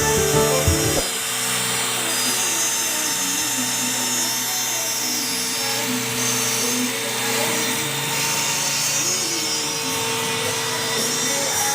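A CNC router's spindle running steadily as it cuts aluminium composite panel, a constant whine over hiss. Music stops about a second in.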